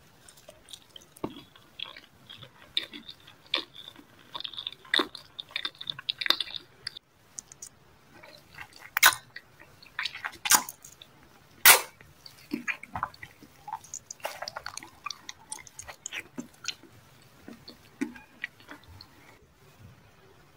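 Close-miked ASMR eating sounds: soft, wet chewing and mouth smacks, with several sharp crunchy bites a little past the middle.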